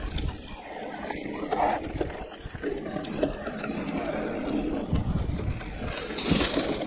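Riding noise of a Giant Reign E+ electric enduro mountain bike rolling fast along a dirt singletrack: tyres on the ground and the bike rattling, with a low rumble and several sharp knocks over bumps.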